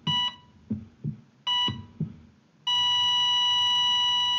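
Electronic outro sting of a GoPro logo card. Short, shrill, camera-style beeps come about a second and a half apart, with deep thuds that drop in pitch between them. Then, about two-thirds of the way through, a long steady beep comes in.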